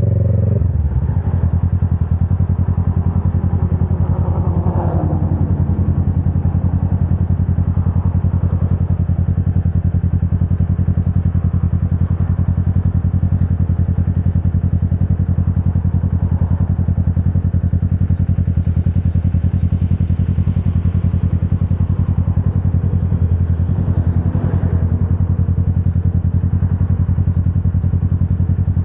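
Motorcycle engine idling steadily with its note settling down in the first second as the bike comes to a stop.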